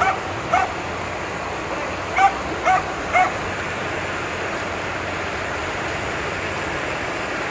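A dog barks five times in the first three or so seconds, over the steady rush of floodwater flowing across a road.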